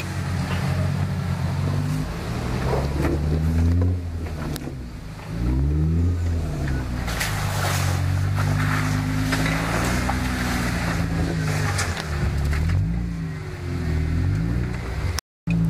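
Four-door Jeep Wrangler engine revving up and falling back again and again as it crawls up a steep, rutted dirt hill, with a few sharp knocks and clicks from the tyres and rocks.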